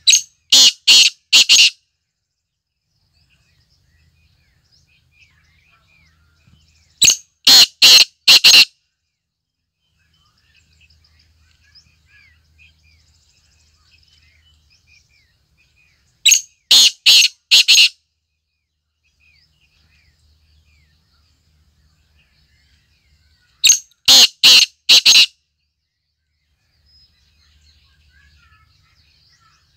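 Black francolin (kala teetar) calling: four loud calls, each a quick run of about five notes lasting about a second and a half, repeated roughly every seven to eight seconds. Faint chirps of small birds come between the calls.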